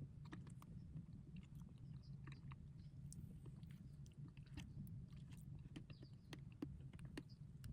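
Faint, irregular small clicks and crackles over a low, steady hum.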